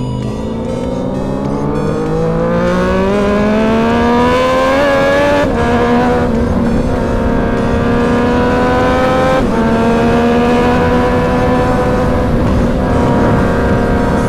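Sport motorcycle engine accelerating hard, its pitch climbing steadily for about five seconds. It then changes gear twice with brief breaks and holds a high, nearly steady note.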